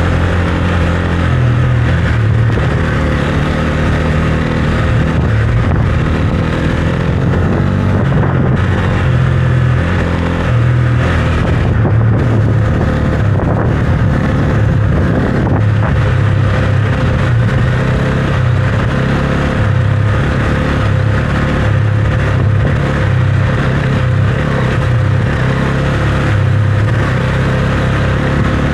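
Husqvarna Svartpilen 401's single-cylinder engine running as the motorcycle is ridden, its low note shifting up and down with the throttle, under a steady rushing noise.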